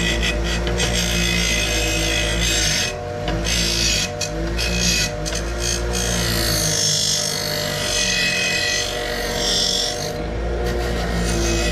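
Bench grinder running with a wire-brush wheel scrubbing the cut edges of an aluminum torque converter backing plate to deburr them. A steady motor hum sits under a harsh scraping hiss that swells and dips as the plate is worked against the wheel, with a few brief lulls.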